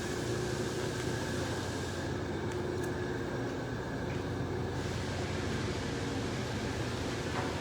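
Steady mechanical hum of running machinery, with a faint high whine held throughout.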